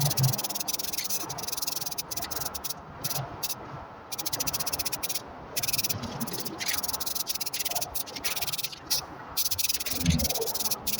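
Stick-welding arc crackling steadily with a dense, frying crackle, broken off briefly several times as the arc stops and restarts.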